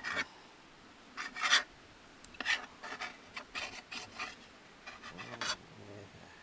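Knife cutting food in short rasping, scraping strokes, in a few irregular bursts with pauses between.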